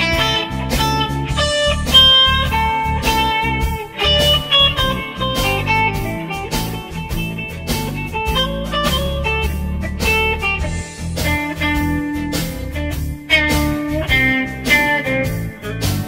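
Background music: a blues tune led by electric guitar, with a steady drum beat.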